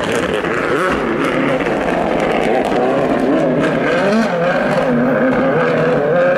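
2017-spec World Rally Car's 1.6-litre turbocharged four-cylinder engine running hard, its pitch rising and falling repeatedly as the car is driven through gears.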